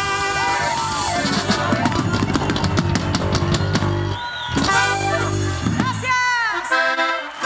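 Live band music led by a drum kit: a long run of rapid drum hits, held chords on either side, and a brief break a little past the middle.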